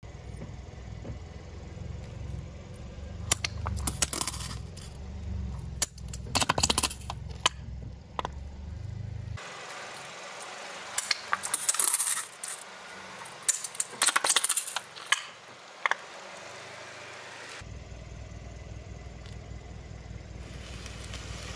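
Car tyre rolling slowly over plastic toothpaste tubes, crushing them: four bursts of sharp cracking and popping as the plastic tubes and their caps split, over a low steady rumble.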